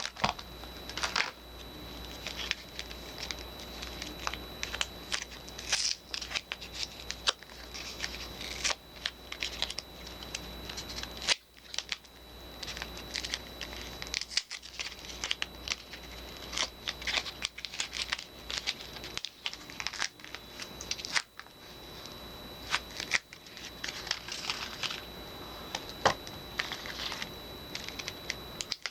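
Soap bars being unwrapped by hand: packaging crinkling and tearing, with many irregular sharp crackles and snips, pausing briefly a couple of times.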